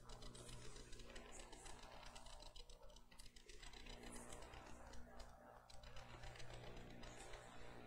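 Near silence: room tone with a steady low electrical hum and faint scattered clicks and rustles.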